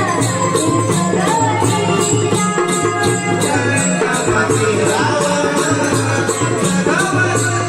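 Konkani naman folk music: dholki drum beats under small hand cymbals keeping a quick steady rhythm, with a gliding melody line over them.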